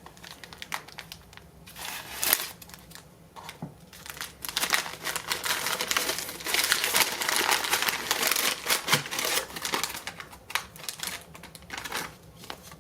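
A plastic mint tube of silver rounds being opened and handled: packaging crinkling and many quick clicks of the rounds, densest through the middle.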